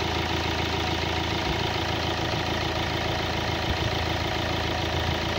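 Common-rail diesel engine idling steadily during an injector back-leak test, its injector return lines running into test bottles.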